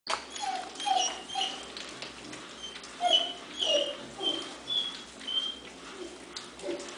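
Young basset hound puppies, about four weeks old, whimpering and squeaking in a run of short, high cries, each dipping slightly in pitch.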